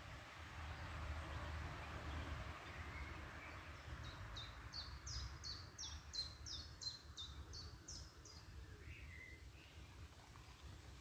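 A small songbird singing a fast series of about a dozen high notes, each sliding downward, starting midway and lasting about four seconds. Beneath it is a low, steady background rumble.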